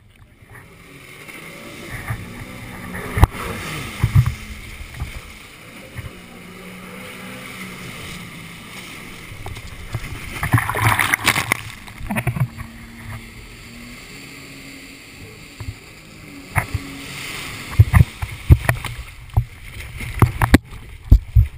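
Jet ski engine running and revving as it circles close by, its pitch shifting. Water sloshes and splashes against a kayak hull and the camera, with a louder rush of spray about halfway through and a run of sharp splashes and knocks near the end.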